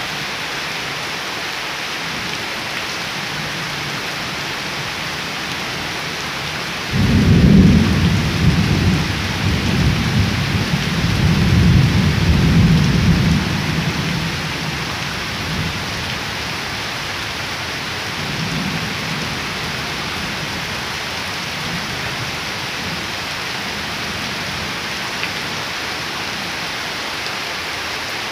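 Heavy rain falling steadily onto waterlogged ground and leaves. About seven seconds in, a low rumble of thunder breaks in suddenly and rolls for about seven seconds before fading, with a fainter rumble a few seconds later.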